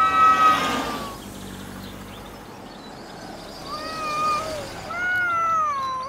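A loud held siren tone dies away about a second in. Then a cat meows twice: a short wavering meow, then a longer one that falls in pitch.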